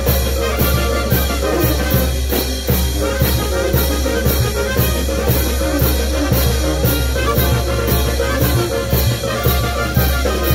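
Brass band playing a huayno live: trumpets and other brass over snare and bass drums, with a sharp percussion hit about twice a second.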